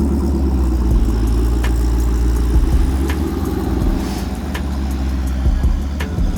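A car engine running steadily and low-pitched, with a few faint clicks over it.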